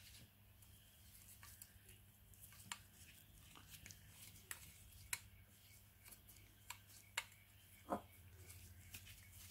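Faint, scattered clicks and scrapes of a flathead screwdriver working against the metal body of a Briggs and Stratton carburetor as a part is unscrewed, over a faint steady low hum.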